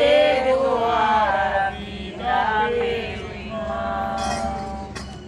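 Voices singing a slow devotional hymn together, unaccompanied, in long drawn-out phrases with short breaks between them.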